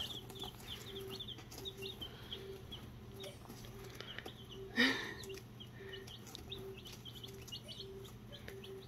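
Baby chicks, Easter Eggers and Barred Plymouth Rocks a few days old, peeping continuously: many short, high chirps overlapping. There is one louder sound about five seconds in.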